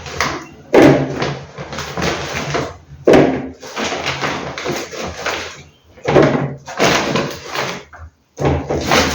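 Groceries being handled and set down on a surface: four sharp thuds about two to three seconds apart, each followed by rustling.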